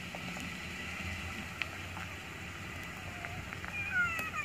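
Steady outdoor background of a low hum and a soft hiss, with a few faint clicks and some short, high, sliding calls near the end.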